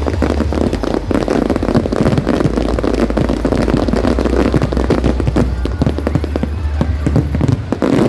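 Fireworks crackling and popping in a dense, continuous stream, with music playing underneath.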